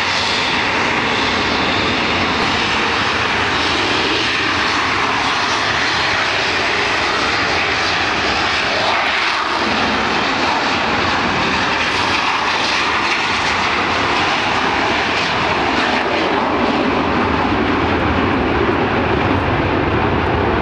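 Several BAE Hawk T.1 jet trainers running their Rolls-Royce Adour turbofans at high power on the runway, lined up for a formation take-off: a loud, steady jet noise.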